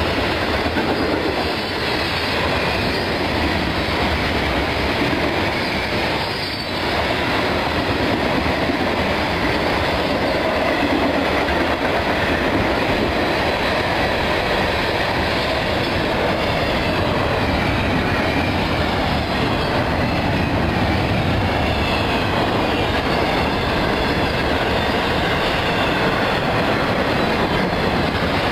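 Long Florida East Coast Railway freight train rolling past close by: a steady rumble and clatter of car wheels on the rails, with faint wheel squeal over it.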